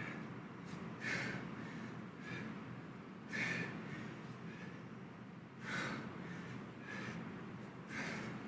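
A man breathing hard during kettlebell exercise, with a sharp, hissing exhale about once a second.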